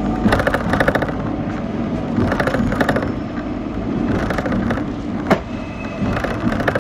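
Hong Kong double-decker tram running, heard from on board: a steady low rumble with repeated bursts of fast rattling and clattering from the car, and one sharp click about five seconds in.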